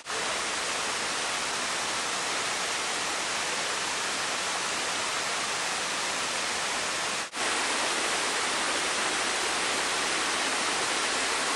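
Small waterfall cascading over rocks: a steady rush of falling water, cutting out for an instant about seven seconds in.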